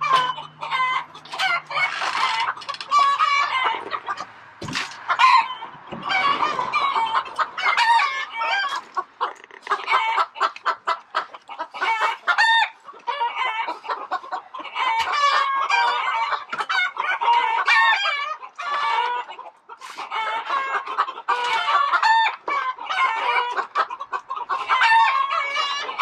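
A flock of chickens clucking and squawking continuously, many short overlapping calls.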